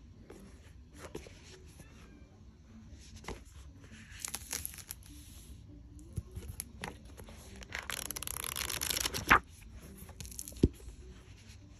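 A hardcover journal being handled and opened: paper rustling and scraping with scattered small clicks. A longer, louder rustle past the middle ends in a sharp knock, and another knock follows about a second later.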